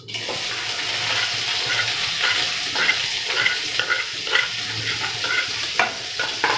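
Onions and mustard seeds frying in hot oil in an iron kadai: a steady sizzle with scattered crackles from the spluttering mustard seeds. A couple of sharper knocks come near the end.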